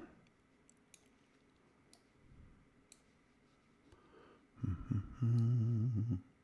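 A few faint computer mouse clicks while images are dragged on screen. Near the end a man hums a wordless "hmm" at a low, steady pitch for about a second and a half.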